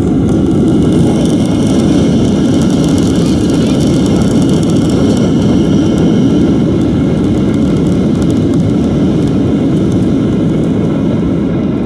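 Steady cabin noise inside a Boeing 737-800 rolling out on the runway after landing: a loud, even rumble from its jet engines and the rolling airframe, with a faint high whine above it.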